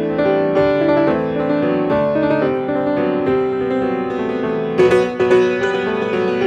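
Solo piano playing a busy passage of many overlapping notes. About five seconds in come sharp, loud accented chords.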